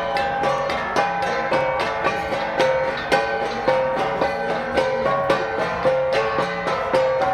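Flat bronze gongs (gangsa) being struck in a steady repeating rhythm, each stroke ringing with several clear pitches.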